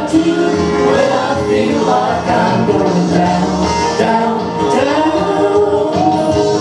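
A man and a woman singing a gospel song together, with instrumental accompaniment.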